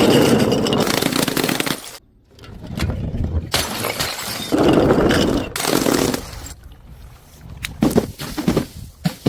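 A series of separate breaking and crushing sounds: two long noisy crunching, shattering passages that each start and stop abruptly, then several short sharp cracks near the end.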